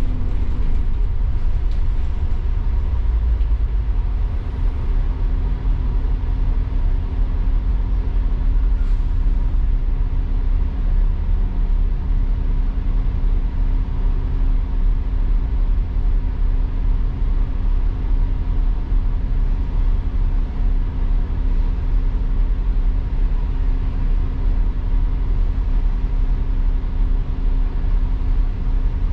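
Double-decker diesel bus driving, heard from inside on the upper deck: a steady low rumble of engine and road with a constant drone. The drone slides down in pitch right at the start, then holds steady.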